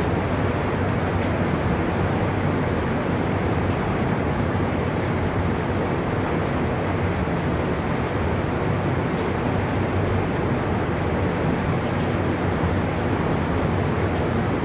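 Steady rushing of floodwater, an even noise with no breaks.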